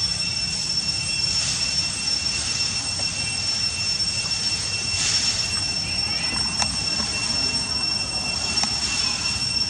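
A steady high-pitched whine with overtones, unbroken and unchanging, over a low rumble.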